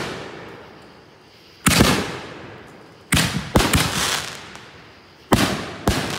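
World Class Excalibur 4-inch canister shells firing and bursting: five sharp reports, a single one, then two pairs about half a second apart, each fading away over a second or so.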